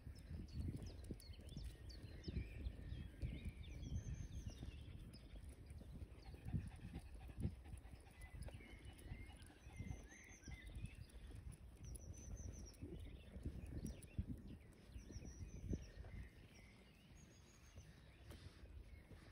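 Birds chirping in short repeated phrases, over irregular low thuds of footsteps from walking.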